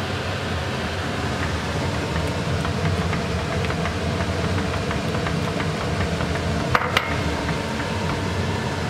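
A steady machine-like hum over the soft scraping of a silicone spatula stirring thick rice-and-milk pudding in a nonstick pan, with two sharp clicks about seven seconds in.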